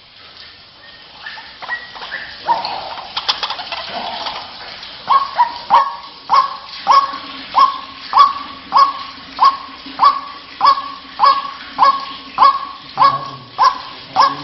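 White-breasted waterhen calling: scattered calls at first, then from about five seconds in a steady run of loud, repeated 'ruak' notes, about one and a half a second.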